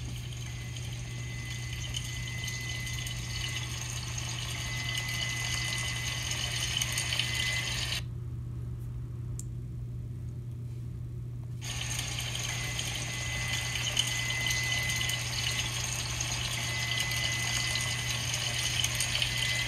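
A sausage sizzling in oil in a frying pan, heard as playback through a smartphone's speaker, over a steady low hum. The sizzling drops out for about three and a half seconds midway, then resumes.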